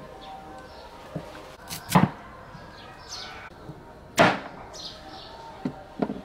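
Cleaver chopping purple sweet potatoes on a thick wooden chopping block: two heavy chops about two and four seconds in, with lighter knocks between them and near the end.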